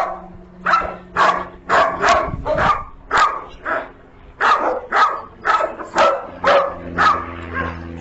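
German Shepherd dog barking over and over, about two to three barks a second, with a short pause a little before the middle.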